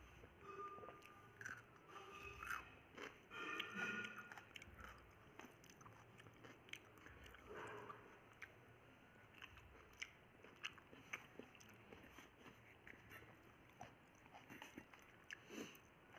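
Faint close-up chewing and biting of a home-cooked meal of roti, vegetable curry and rice eaten by hand: soft, scattered mouth clicks and smacks.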